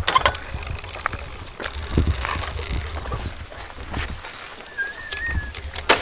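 Footsteps on dry grass with knocks of camera handling, and a knock right at the start as a wooden gate is pushed open. About five seconds in comes one short, warbling bird call.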